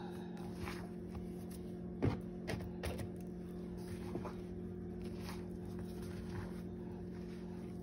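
Chicken strips being turned and pressed by hand in flour breading mix in a bowl: soft patting and rustling, with a few light knocks against the bowl about two to three seconds in, over a steady low hum.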